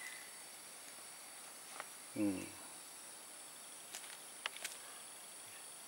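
Steady high-pitched insect chorus in the forest canopy, with a short grunt-like human voice sound about two seconds in and a few light clicks after four seconds.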